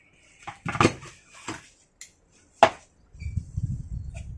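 A wooden tool box being handled and steel bonsai cutters knocking and clinking against the wood as they are taken out: several sharp knocks and clicks, the loudest about a second in and near the three-second mark, then a low rubbing handling noise.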